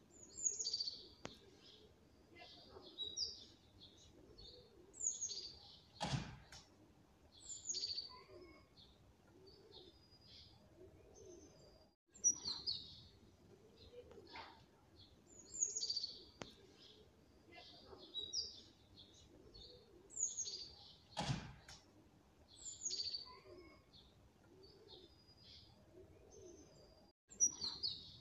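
Small birds chirping: short, high chirp phrases every second or two, with fainter lower calls beneath and a sharp click about six seconds in and again about fifteen seconds later.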